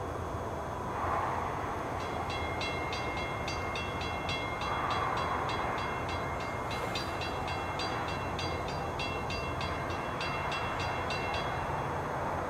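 Railroad grade-crossing bell ringing rapidly, about three strokes a second, starting about two seconds in and stopping near the end, over a steady rumble. A distant locomotive horn sounds faintly twice, about a second in and around five seconds in, as the train approaches.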